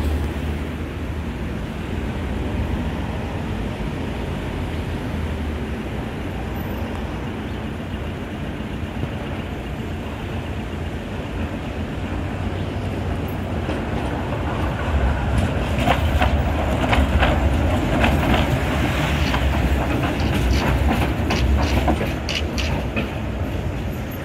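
V3A-93 articulated electric tram running along street track, a steady rumble with road traffic. About two-thirds of the way through comes a run of sharp clacks as its wheels cross the track.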